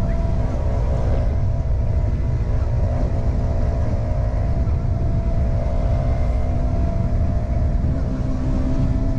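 Motorcycle engine running at a steady cruise, heard from a helmet-mounted camera with wind rushing over the microphone.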